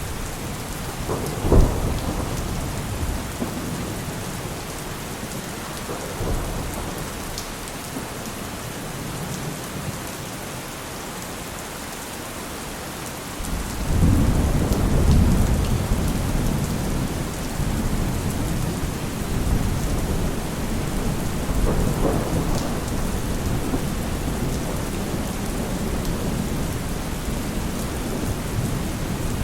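Heavy rain falling steadily, with thunder: a sharp clap about a second and a half in, then a long, low rolling rumble that starts about halfway through and keeps swelling and fading.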